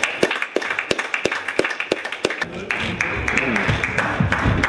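A few spectators clapping quickly after a table tennis point, several claps a second, which stop about two and a half seconds in. Voices calling out follow.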